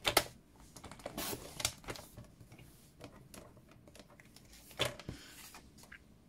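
Paper trimmer cutting a sheet of designer paper: a sharp click at the start, then short scratchy runs of the blade through the paper and scattered light clicks and paper rustling as the sheet is handled.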